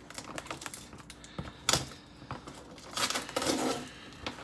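Scissors and fingers working at the packing tape on a cardboard mailing box: irregular clicks and taps, a sharp snap a bit under two seconds in, and a short scraping rustle about three seconds in.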